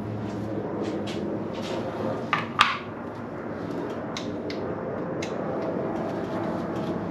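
Scattered light clicks and clinks of hand tools and metal engine parts being handled during an engine top-end teardown, with one sharper knock about two and a half seconds in, over a steady low hum.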